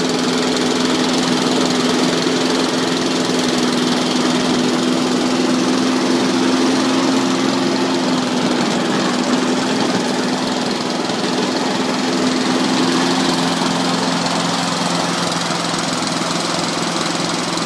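Honda engine of a Champion Premier petrol lawnmower running steadily.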